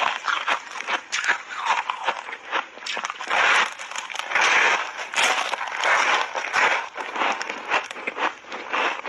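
Refrozen ice block coated in matcha powder being bitten and chewed close to a clip-on microphone: a dense run of sharp crunches and cracks. The loudest crunching comes in bursts from about three to six and a half seconds in.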